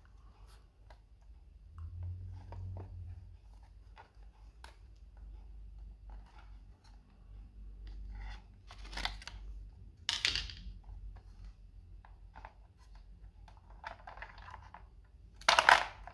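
Hands handling the clear plastic storage case of a baby nail trimmer: scattered light clicks and plastic rattles, with short louder scrapes about nine and ten seconds in and the loudest clatter near the end.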